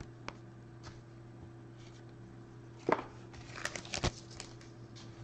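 Trading cards and foil packs handled on a tabletop: a sharp tap about three seconds in, then a quick flurry of clicks and crinkles with a dull thump. A steady low hum sits underneath.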